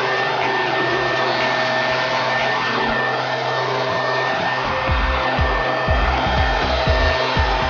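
Leaf blower running steadily with a whining note, blowing grass clippings off a concrete driveway after mowing. From about five seconds in, irregular low thuds knock on the microphone.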